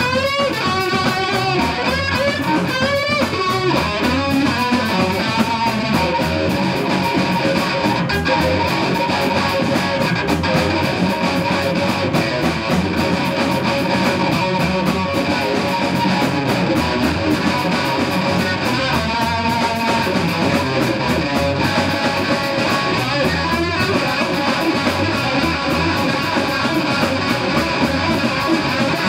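Live power trio playing blues-rock: an electric guitar leads with bending, wavering notes in the first few seconds and long held notes after, over bass guitar and a drum kit with steady cymbal strokes.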